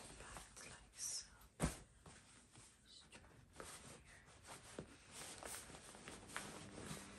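Faint rustling of clothes being handled and pressed into a packed travel bag, with a single sharp click about a second and a half in.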